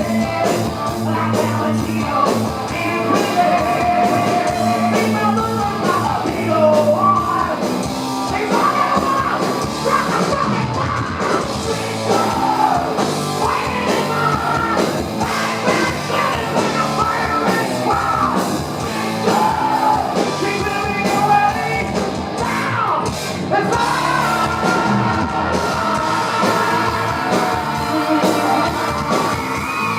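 Live heavy metal band playing at full volume, with a male lead singer belting and yelling over electric guitars and drums.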